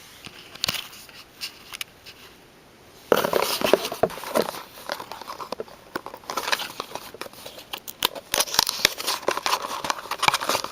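Plastic packaging being crinkled and torn open by hand, with many quick clicks and rustles. After a few light taps, it starts about three seconds in.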